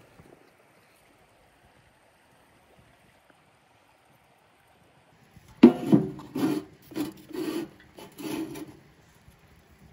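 About five rasping, scraping strokes in quick succession, roughly two a second, starting just past halfway through.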